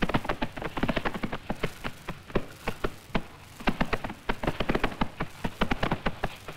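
Rapid, irregular clatter of horses' hooves, many sharp knocks overlapping.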